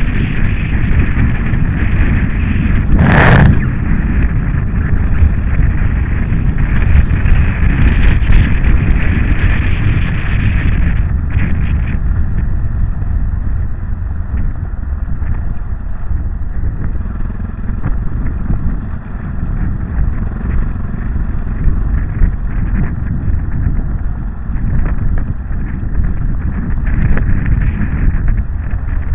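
Yamaha XT660Z Ténéré's single-cylinder engine running at riding speed on a gravel track, under heavy wind rumble on the bike-mounted camera's microphone. A single loud knock about three seconds in, and a few sharp clicks around eight seconds.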